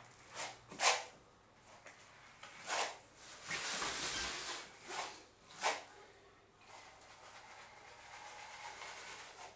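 Texturing comb scraping through wet artex texture compound on a wall: a run of short rasping strokes, with one longer stroke about four seconds in, then fainter scraping near the end.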